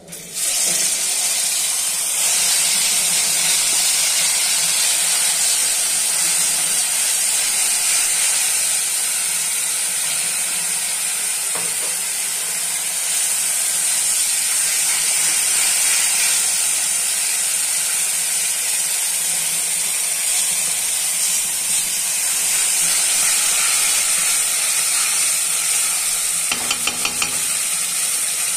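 Wet ground gravy paste sizzling loudly as it hits hot oil and spices in an aluminium kadai, breaking into sizzle as it goes in and frying steadily as it is stirred. Near the end a spatula scrapes the pan in a quick run of strokes.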